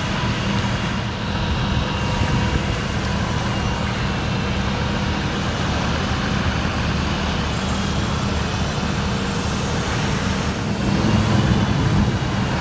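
The idling engine of a 2014 Dodge Ram 5500 bucket truck and the hydraulics of its Terex HR40 aerial lift run steadily as the boom is lowered to stow. The sound grows a little louder near the end.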